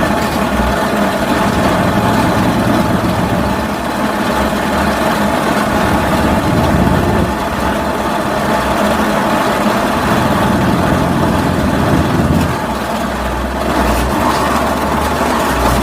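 Heavy engine of rock-drilling machinery running steadily, a constant loud drone with slight rises and dips in level.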